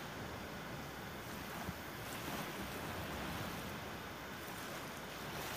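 Steady wind and rough-sea noise: an even hiss of wind and waves with no distinct events.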